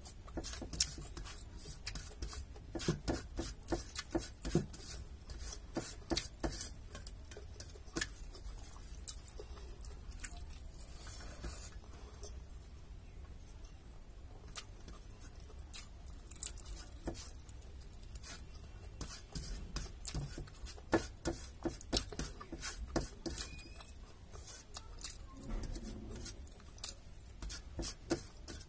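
Eating rice by hand from a steel plate: chewing and lip smacks close to the microphone, with fingers pressing and scraping rice on the metal plate, a run of irregular small clicks and smacks.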